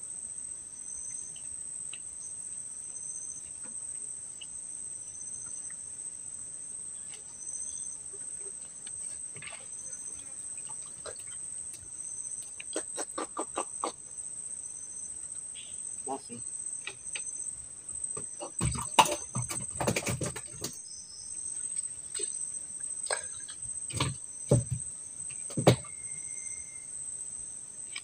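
Steady high-pitched insect chorus, typical of crickets. Over it come a quick run of clicks about halfway, a cluster of loud knocks about two-thirds in, and a few single thumps near the end.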